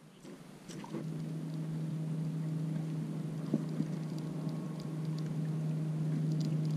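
Motorboat engine running steadily, a low hum that starts about a second in and slowly grows louder.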